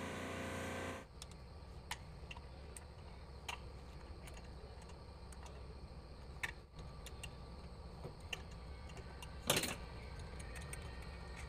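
Light metallic clicks and taps as a steel back plate is handled and fitted against a homemade lathe's spindle flange, with a louder metal clank about nine and a half seconds in. A steady hum stops suddenly about a second in.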